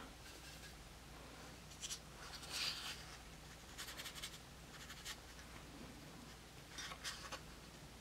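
Faint scratchy strokes of a paintbrush on watercolour paper, several short brushes spaced about a second apart, made while painting colour swatches.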